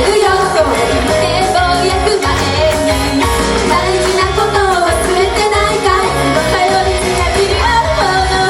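Loud live pop-rock performance: a lead vocal singing over a full, steady band sound.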